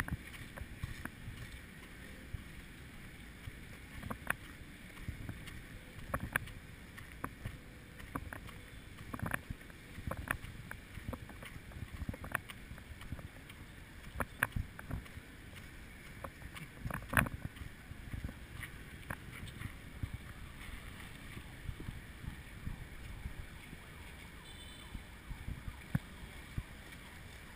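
Muffled knocks and thumps from a walking person carrying a GoPro in its waterproof housing, footsteps and handling, irregular and about one a second at times, with the loudest about two-thirds of the way through. A low steady rumble underlies them.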